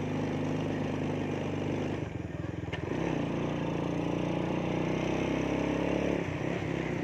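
Motorcycle engine running while riding, heard from the rider's seat; the engine note eases off for about a second around two seconds in, then picks up again.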